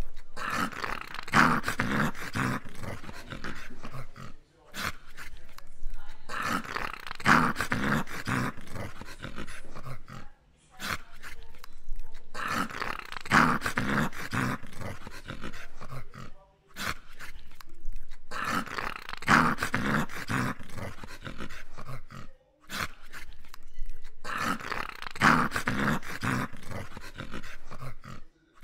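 English cocker spaniel play-growling in long rough bouts, about one every six seconds, with short breaks between them.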